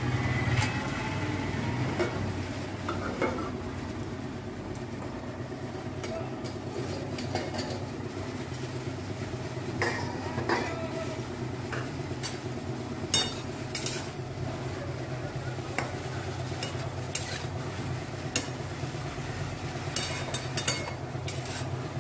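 Steel spatula stirring and scraping fried leafy greens in a kadai, with scattered clicks and taps of metal on the pan, over a steady low hum.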